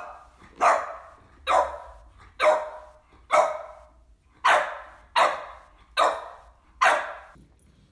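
French bulldog barking: about nine sharp single barks, evenly spaced at roughly one a second.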